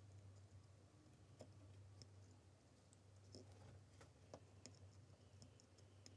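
Near silence: a low steady hum with several faint, scattered clicks from hand-soldering pins on a circuit board, the iron and solder wire touching the board.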